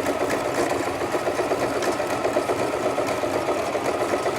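Sewing machine running steadily at speed, stitching through doubled wig hair wefts, with a rapid even stitching rhythm.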